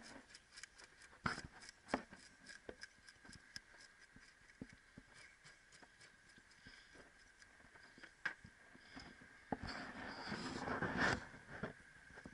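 Ring-shaped fish scaler scraping the scales off a whole mullet on a plastic cutting board: a run of short, quick scraping strokes, with a louder stretch of scraping about ten seconds in.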